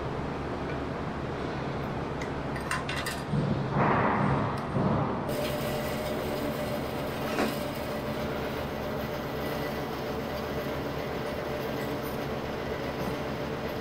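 Steady mechanical hum in a workshop. About three and a half seconds in comes a couple of seconds of louder scraping and clinking, as aluminum angle stock is slid and handled on the metal bandsaw table, with a single click a few seconds later.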